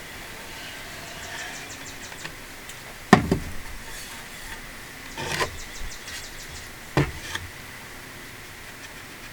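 Three sharp knocks about two seconds apart, the first the loudest, over a steady faint hiss with a thin high whine.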